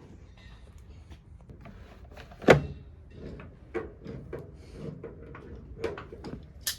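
Scattered knocks and clunks of things being handled and set down, with one sharp knock about two and a half seconds in the loudest and several lighter knocks after it.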